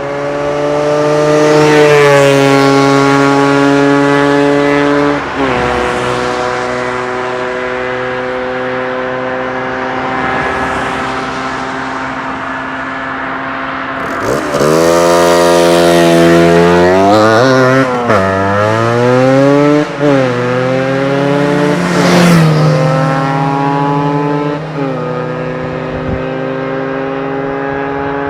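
Yamaha DT125 two-stroke single-cylinder engine with an Athena end silencer, running at fairly steady revs after picking up at the start. Its pitch drops sharply about five seconds in. It revs quickly up and down several times in the middle, then settles steady again.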